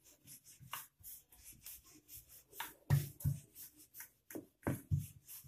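Wooden rolling pin rolling dough back and forth on a floured board, a quick irregular series of short, soft rubbing strokes as a paratha is rolled out.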